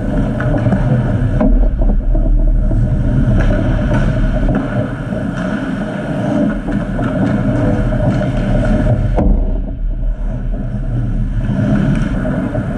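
Ice hockey game heard from the goal end of an indoor rink: a steady low rumble with a few faint knocks of sticks, skates or puck on the ice.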